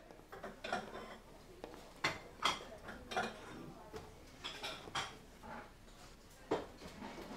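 Dishes and cutlery being handled, clinking and clattering in a run of irregular knocks.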